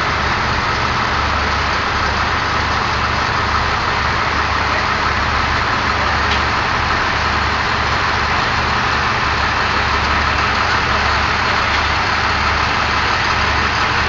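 A vehicle engine running steadily at a constant pitch, with a continuous hiss over an uneven low hum.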